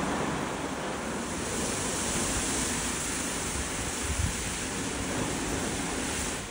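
Gantry car wash spraying the car: a steady rushing hiss that grows brighter about a second and a half in and cuts off suddenly near the end.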